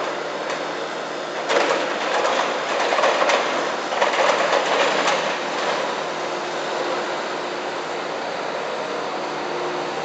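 Compact excavator's engine running with a steady hum, its bucket scraping and digging into dirt and broken pavement in a louder, clattering stretch of a few seconds, after which only the steady engine hum remains.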